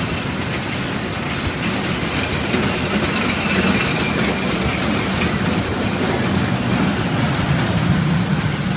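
Kiddie roller coaster cars running along their steel track: a steady rumbling din.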